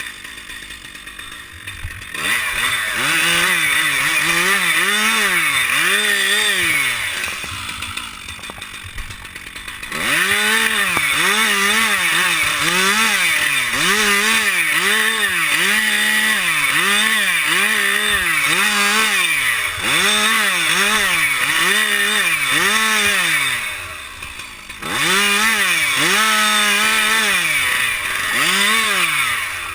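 Two-stroke chainsaw cutting silver birch, its engine pitch rising and falling about once a second as it works through the wood, dropping back to a quieter idle twice before cutting again.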